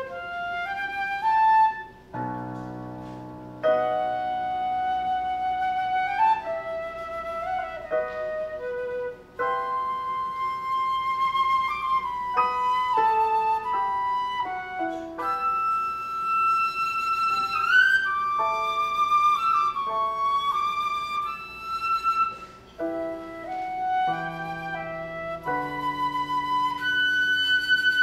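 Concert flute playing a classical solo melody of held and moving notes, broken by short pauses between phrases, with a piano accompanying on lower notes.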